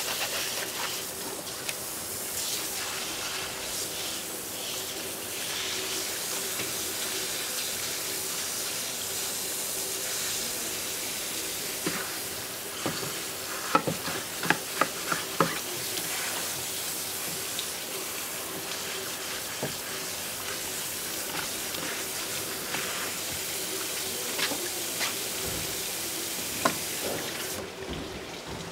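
Water running steadily in a steady hiss, with a quick run of five or six sharp knocks about halfway through and a few single clicks later.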